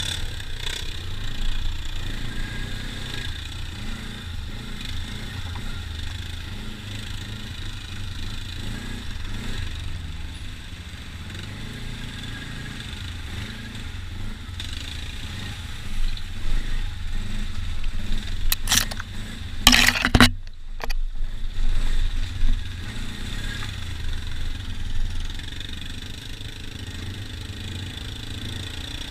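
ATV engine running at low speed over a rough, muddy trail. About two-thirds of the way through, a few loud sudden knocks and bumps stand out over the engine.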